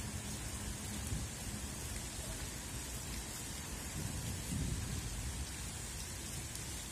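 Steady rain hiss with a low rumble underneath, swelling slightly about two-thirds of the way through.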